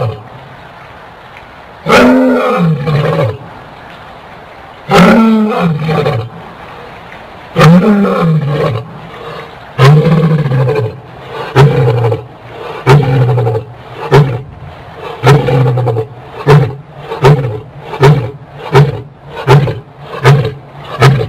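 An animal roaring in a long series: four long roars, each rising and then falling in pitch, then about a dozen shorter grunting roars that come faster and faster.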